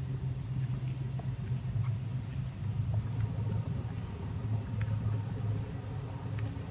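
Steady low hum with a rumble underneath and a few faint ticks.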